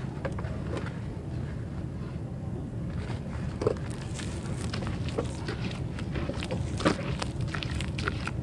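Hands working wet red dirt in a basin of water: scattered small squelches, crackles and drips of crumbling mud, with two louder wet knocks, one a little before halfway and one near the end. A steady low rumble runs underneath.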